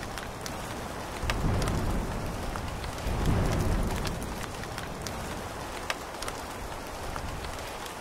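Steady rain falling and pattering on a surface, with scattered sharp drop ticks. A low rumble swells up twice, about a second and a half in and again around three and a half seconds in.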